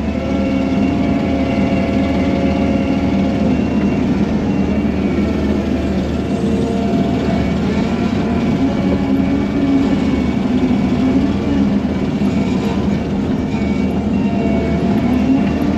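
Engine of a bucket loader running steadily while it pushes and packs clay fill, its pitch shifting a little as it works.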